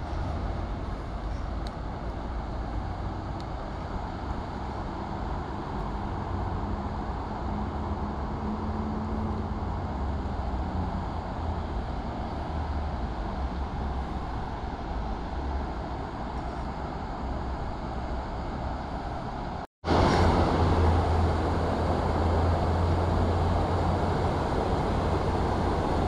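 Steady outdoor background noise, a low rumble and hiss with distant city traffic. After a short break about 20 seconds in it comes back louder, with the rush of water pouring over a low river weir.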